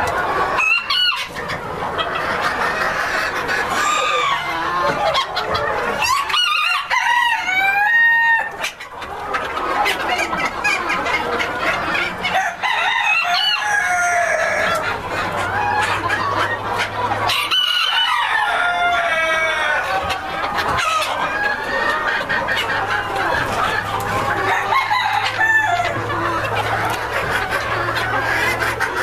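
A flock of Mille Fleur Old English Game bantam chickens clucking and cackling without pause, with bantam roosters crowing again and again over the top. A low steady hum comes in about halfway through.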